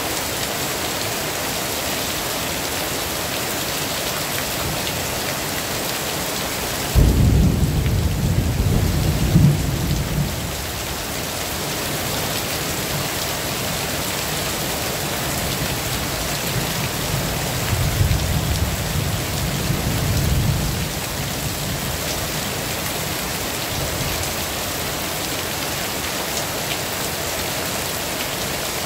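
Heavy rain falling steadily. A sudden clap of thunder about a quarter of the way in rumbles on for about three seconds, and a second, softer roll of thunder follows a little past halfway.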